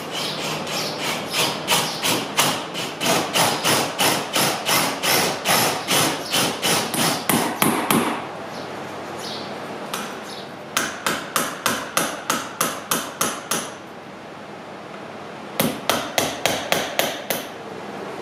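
Hammer striking a chisel in quick, even blows, about four a second, in three runs: a long one of about eight seconds, a shorter one a few seconds later and a brief one near the end. The chisel is cutting the shallow recess for a door latch strike plate into a wooden door jamb.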